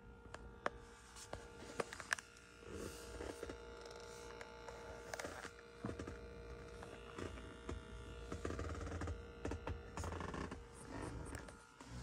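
Steady electrical buzz, a ground hum from a Tesla Model 3's dashboard and centre console area, which the owner puts down to the 2022.36.6 software update. Clicks, bumps and rustling from the handheld phone being moved around sit on top of it, the sharpest clicks in the first two seconds.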